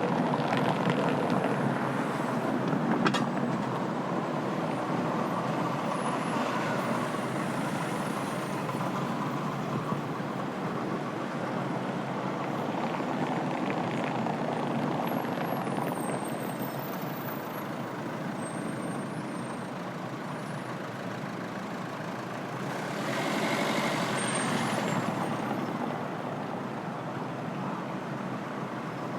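Busy city street traffic: a steady mix of passing vehicles, with a short sharp knock about three seconds in and one louder vehicle passing about three-quarters of the way through.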